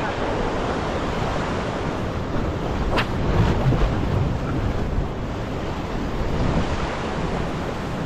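Ocean surf washing and breaking around a rock ledge, with wind buffeting the microphone. One sharp click about three seconds in.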